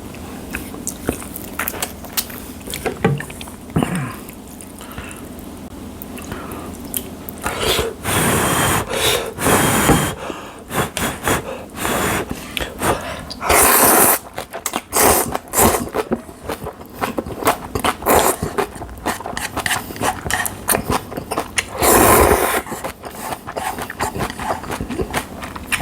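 Close-up eating sounds of spicy seafood jjamppong ramen: noodles slurped in a few long, loud pulls, with wet chewing and small clicks in between.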